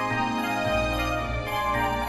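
Background music: sustained chords over a steady bass.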